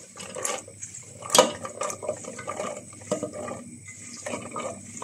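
Handfuls of cut flat green beans dropping from a metal bowl into a stainless-steel pot of water, splashing and plopping in, with one sharp clack about a second and a half in.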